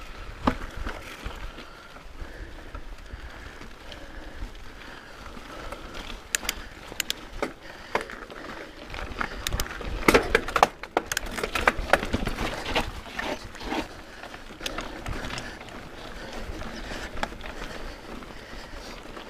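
Santa Cruz Nomad 4 CC mountain bike descending a rocky trail: tyres rolling over granite and loose gravel under a low rumble, with a cluster of sharp clicks and knocks from the bike jolting over rocks in the middle, loudest about ten to twelve seconds in.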